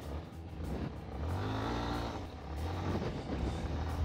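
Yamaha Teneré 250's single-cylinder four-stroke engine running under way. The engine pitch rises briefly as it revs up about a second and a half in, then settles.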